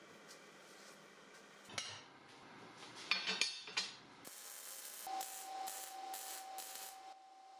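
A few sharp metal clanks of steel pieces on a steel table, then arc welding from about four seconds in: a crackling hiss that comes in short pulses, with a steady whine underneath.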